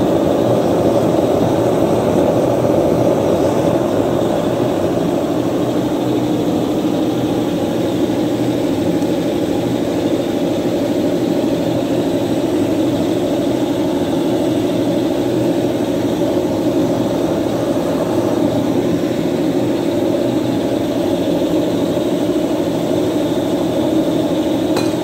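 Gas forge burner running with a steady, unbroken rush while a knife blade heats in it to hardening temperature.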